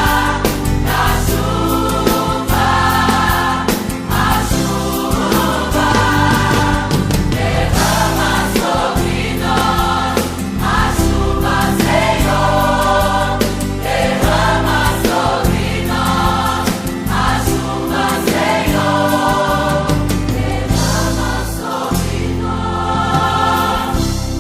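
Gospel song backing track: a choir singing over a full band accompaniment with a steady bass.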